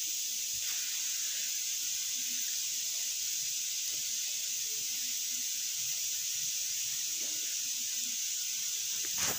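Steady high hiss of background noise, with faint soft rustles from flour being sifted through a plastic mesh sieve.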